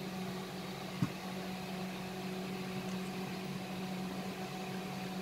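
A steady low machine hum, with one light knock about a second in as the metal lid is settled on the pot.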